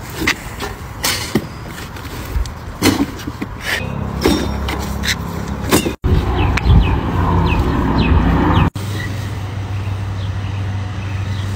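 A large cardboard box knocking and scraping against a brick mailbox as it is shoved at the opening, with many sharp knocks over the first six seconds. After two abrupt cuts, a steady low hum carries on, like an idling vehicle.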